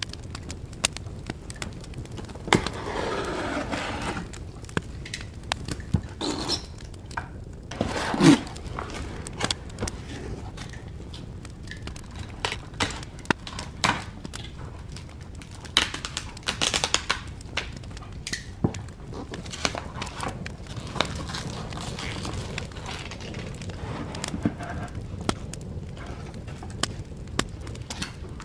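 Handling noise of a cardboard shipping box being cut open and unpacked: taps, clicks and cardboard scraping, with a few longer tearing or scraping stretches, the loudest about eight seconds in.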